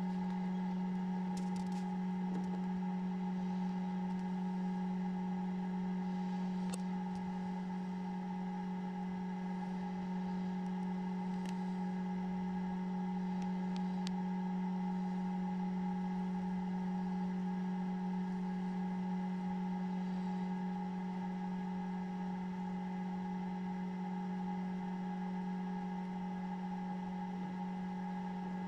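Steady low hum of an egg incubator's running fan, with a few faint clicks scattered through it.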